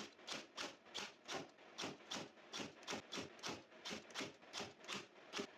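Stapler driving staples into the glued wooden staves of a bucket, a quick regular series of sharp clicks, about two to three a second.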